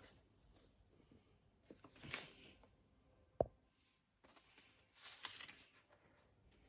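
Faint rustling of hands handling a product box, in two short bursts a few seconds apart, with a single sharp click between them.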